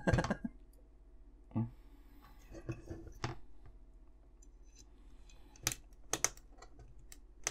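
Small screwdriver working screws into a die-cast metal model engine block, with a handful of light, sharp clicks and taps at irregular intervals as the tool and parts are handled.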